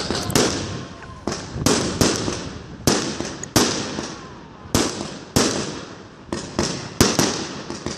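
Aerial fireworks shells bursting one after another in an irregular series of sharp bangs, about two a second, each dying away quickly.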